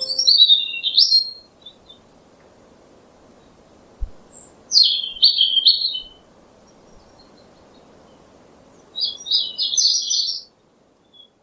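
Songbird singing in three short bouts of high, quick chirping phrases separated by pauses of a few seconds, over a faint steady background hiss.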